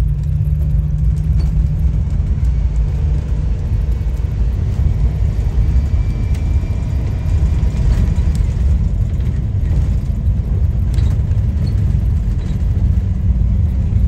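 Bus engine and road noise heard from inside the passenger cabin while driving: a steady, loud low rumble, with a steady engine hum standing out during the first couple of seconds.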